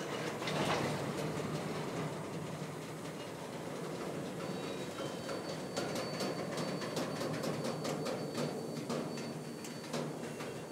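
BNSF three-bay covered hopper cars rolling slowly past, their steel wheels rumbling on the rail and clicking irregularly over the track. A faint, thin high squeal from the wheels comes in about four seconds in and fades out after several seconds.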